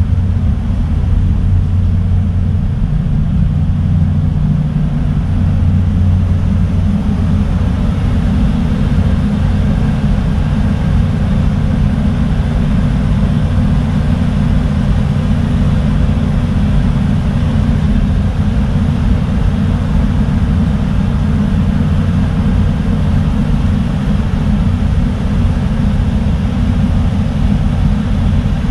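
A ferry's diesel engines droning steadily with a low hum, heard on board while the ship is under way.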